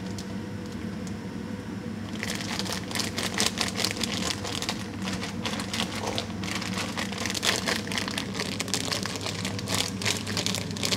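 Food sizzling and crackling in a hot frying pan, growing louder and busier about two seconds in, over a steady low hum.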